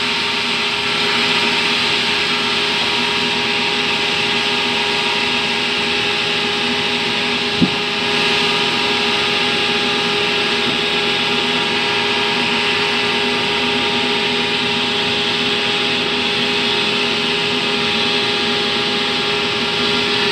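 Band sawmill running steadily as its blade cuts along a terap log, a continuous machine hum with a hissing cut noise. One brief sharp knock comes about seven and a half seconds in.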